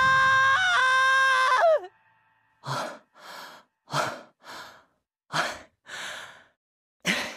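A held musical chord that slides down and cuts off about two seconds in, then a man's heavy breathing: four pairs of sighing breaths, each a louder breath followed by a softer one, about a second and a half apart.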